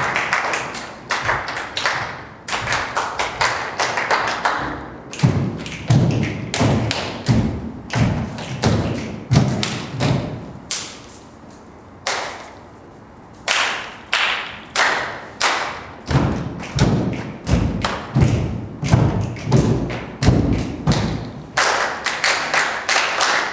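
Body percussion by a group of dancers: rhythmic thuds of feet stomping on a stage floor with slaps, about two or three strokes a second, stopping briefly about halfway and then resuming.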